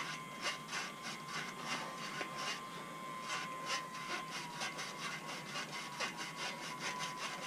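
A long brush scrubbed back and forth inside an oil gallery of a Gen 3 Hemi engine block, a rasping scrape about three strokes a second, working loose deposits in the passage.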